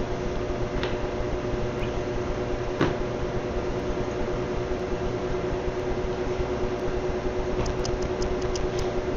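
Electric ceiling fans running: a steady whir with a held hum. A single sharp click about three seconds in.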